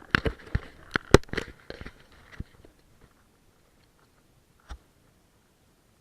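A quick, irregular run of sharp clicks and knocks, like gear being handled, dying away after about two and a half seconds, then a single knock near the end.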